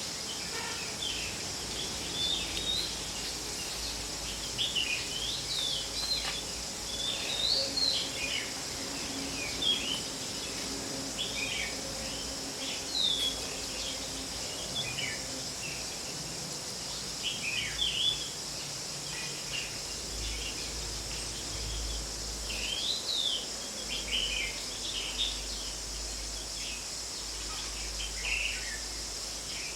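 Small birds chirping in many short, separate calls and quick sliding notes, over a steady high hiss.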